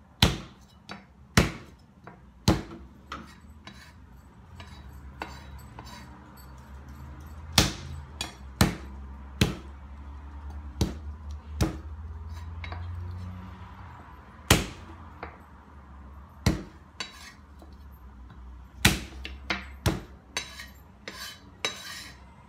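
Flat of a kitchen knife blade banged down on garlic cloves on a wooden cutting board to crush them: many sharp knocks at uneven intervals, sometimes two or three in quick succession.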